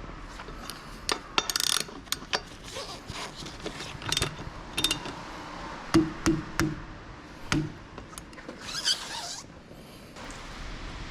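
Metal hand tools and brake parts clinking, clicking and knocking during car brake work, some clinks ringing briefly. A short hiss comes about nine seconds in.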